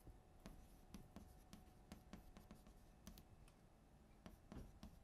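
Faint writing sounds: irregular small scratches and taps of writing on a surface, a few a second.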